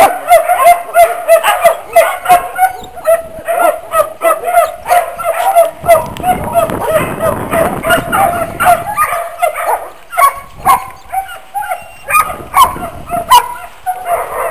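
Many dogs barking at once in a fast, overlapping chorus of short sharp barks.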